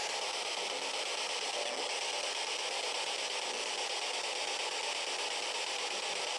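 Steady hiss of radio static from a handheld radio played through a small external speaker, of the kind used in a ghost-box session.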